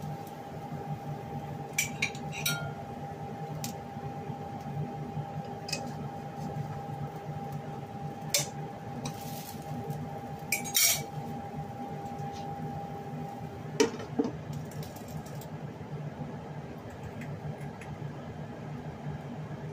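Kitchenware clinking: a fork and a glass pan lid knock against a plate and a wok in a few separate clinks, with a short clatter about two-thirds of the way through as the lid goes onto the pan. A steady hum runs underneath, and a thin high tone in it stops at about the same moment.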